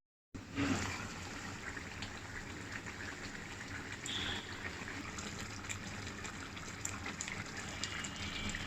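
Pabda fish curry simmering in a pan: a steady bubbling with many small pops, cutting in after a brief dropout at the start.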